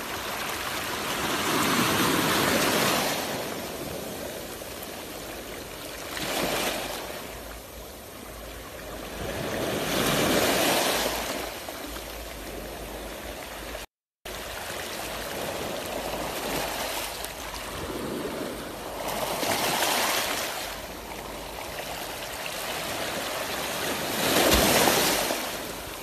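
Small Black Sea waves washing in and out over pebbles and rocks at the water's edge, surging every few seconds.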